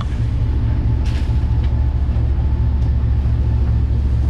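Steady low rumble of a large party fishing boat under way, its engines droning, with a few faint ticks on top.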